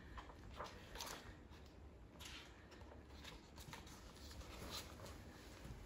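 Faint rustling of a picture book's paper pages as it is opened and its pages turned: a few soft, scattered rustles over quiet room tone.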